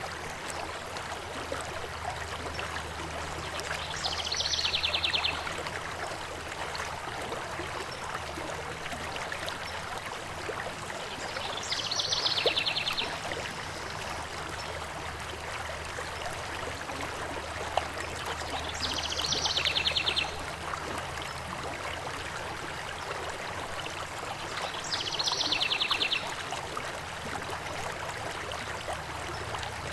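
Steady rush of flowing river water, with a songbird singing the same short, rapid trilling phrase four times, about every seven seconds.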